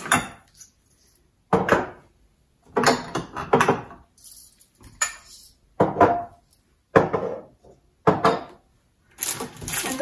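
Glass jars and containers being handled and set down on a cabinet shelf: a series of short, separate clinks and knocks with quiet gaps between them.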